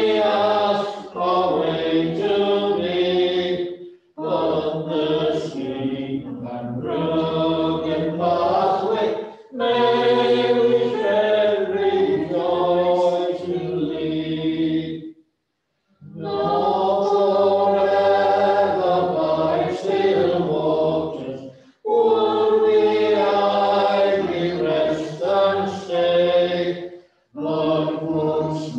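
A choir singing a hymn phrase by phrase, with a short breath between lines and a slightly longer pause about halfway through.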